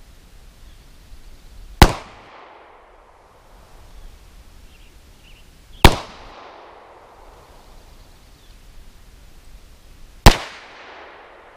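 Beretta 92FS 9x19 pistol firing three single shots about four seconds apart, each followed by a short echo.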